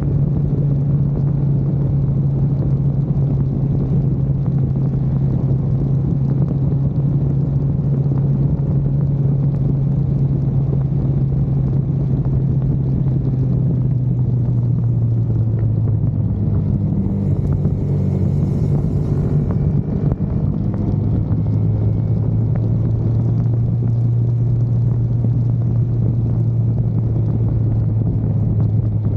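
Engine of a vehicle lapping a track in the rain, heard onboard: a steady, loud drone whose pitch drops a little about halfway through, with a short hiss a few seconds later.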